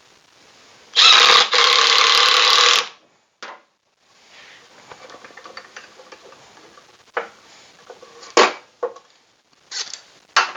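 Power drill running for about two seconds in two quick pulls of the trigger, typical of driving a screw into the wood of a table saw sled. A few light knocks of wooden parts being handled follow near the end.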